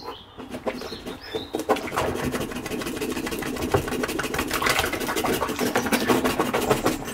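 Soapy washing-up water bubbling, gurgling and splashing in a stainless steel sink as an upturned plastic funnel is worked under the suds, a dense crackle of bubbles that grows louder about two seconds in.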